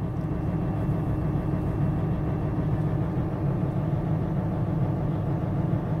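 Mercedes-Benz Actros truck's diesel engine idling steadily, heard from inside the cab as an even low rumble.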